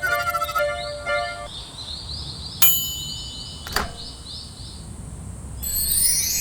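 Railroad crossing warning bell ringing, cutting off about a second and a half in, over a repeating high chirp. Then two sharp metallic clangs with ringing about a second apart, the first the loudest sound. A dense high chirping starts near the end.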